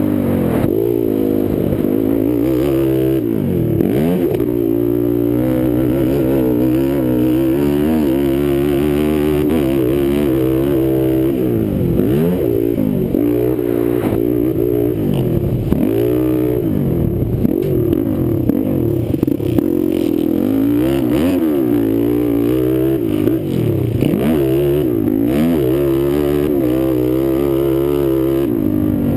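Sport quad ATV engine under hard riding, revving up and down over and over, its pitch climbing and dropping with each throttle change and gear shift.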